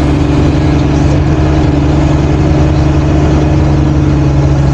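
Kato NK-200H truck crane's diesel engine running steadily, loud and close from the operator's cab.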